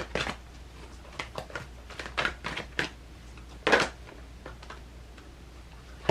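Tarot or oracle cards being handled and laid down: scattered short taps and rustles, with one louder slap a little past the middle.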